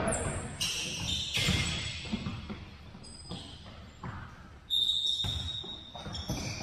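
Sneakers squeaking on a hardwood gym floor, with the thuds of a futsal ball being kicked and bouncing in a large hall.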